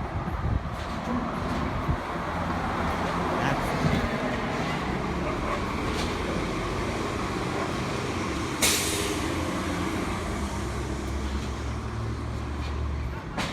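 City street traffic with a heavy vehicle's engine running, and a short sharp hiss about two-thirds of the way through.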